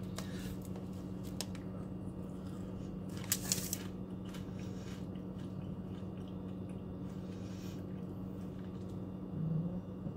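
Pringles Mingles snack bag crinkling briefly about three seconds in as it is handled, with a few faint clicks, over a steady low hum.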